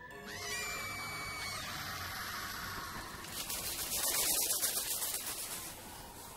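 Horror-trailer sound effects: a shrill pitched cry that rises and then holds for about a second, followed by a loud, rapidly fluttering hiss that peaks about four seconds in.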